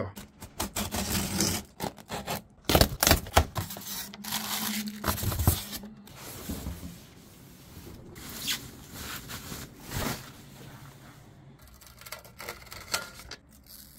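Packaging being handled while a boxed speaker is unpacked: cardboard box flaps knocking and scraping in the first half, then softer rustling of the plastic wrap and protective film being peeled off the speaker grille.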